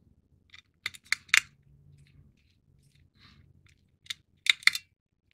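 Plastic model-kit parts clicking and tapping as they are handled and fitted together: a few sharp clicks about a second in, faint rustling handling, then another cluster of sharp clicks near the end.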